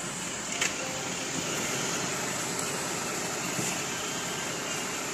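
Steady vehicle noise heard from inside a car standing in traffic, with a sharp click a little over half a second in and a fainter one about three and a half seconds in.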